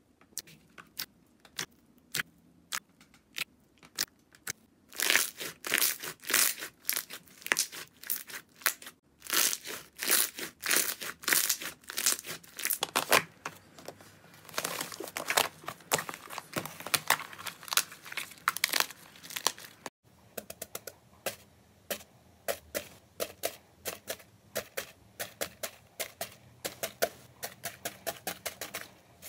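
Hands pressing into and pulling off slime, making a run of sharp sticky pops and crackles, sparse at first and then dense. About two-thirds of the way through it cuts to a lighter, quicker crackle of foam-bead slime (floam) being squeezed.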